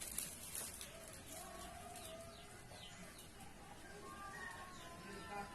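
Faint birds chirping in short, quick falling notes, over a quiet background.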